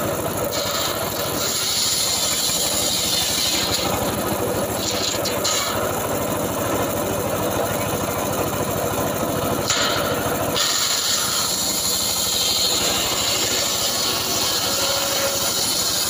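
Homemade engine-driven circular saw bench ripping logs into boards: the engine runs steadily throughout, and a high cutting hiss from the large blade rises and falls as wood is fed through it, strongest from about ten seconds in.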